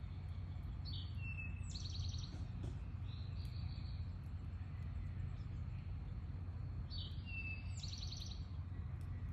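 A songbird singing the same short, quick song twice, about six seconds apart. It sings over a steady low background rumble.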